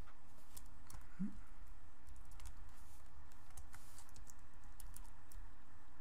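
Scattered, irregular computer keyboard keystrokes, a comma typed here and there into a database query, over a steady low electrical hum.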